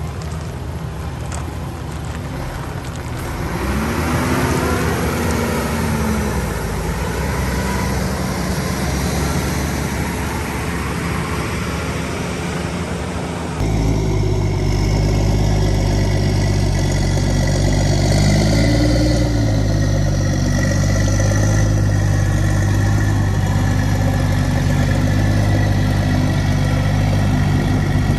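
Heavy construction machinery engine running, revving up and settling back twice. About halfway through the sound switches abruptly to a louder, deeper engine note.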